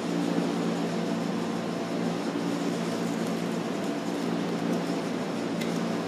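Steady low hum and hiss of room tone, with a faint click near the end.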